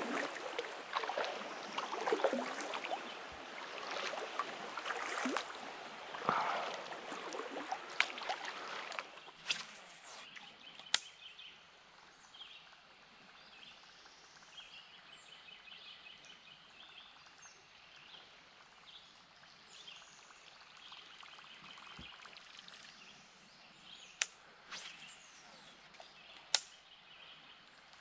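Kayak paddle strokes dipping and splashing in calm river water for the first nine seconds or so. The paddling then stops, leaving a quiet drift with small birds chirping faintly and a few sharp knocks.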